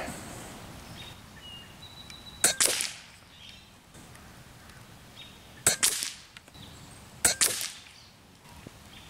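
Three shots from an AGT Vixen Long regulated PCP air rifle firing .22 pellets, each a sharp pop with a short ring after it: the first about two and a half seconds in, the next about three seconds later, the last a second and a half after that.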